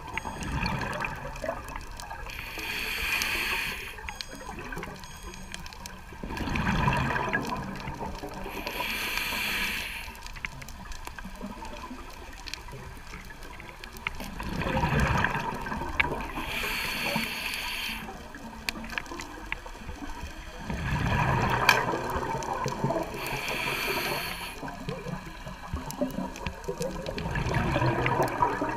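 Scuba diver breathing through a regulator underwater: a hiss on each inhale alternating with a rush of exhaled bubbles, about four breaths, one every six or seven seconds.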